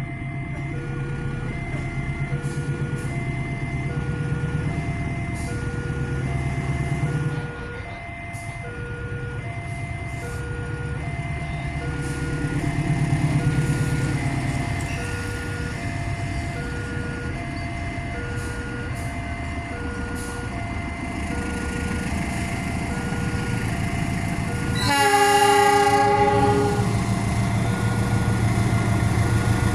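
Level-crossing warning bell sounding a short electronic tone about once a second over the low rumble of an approaching diesel locomotive. About 25 seconds in the locomotive sounds its horn for roughly two seconds, and the engine grows louder near the end as the train nears the crossing.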